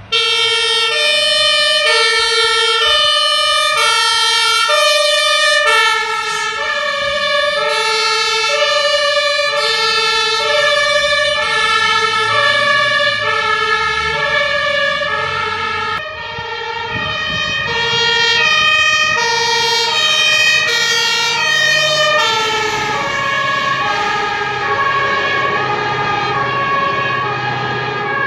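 Fire engines' two-tone sirens (German Martinshorn) sounding the alternating high-low tone, with truck engines running underneath near the end.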